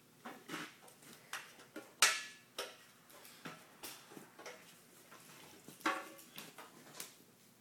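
Scattered sharp knocks and clicks of a DeWALT chop saw and its cord being handled on a concrete floor, the loudest about two seconds in; the saw's motor is not running.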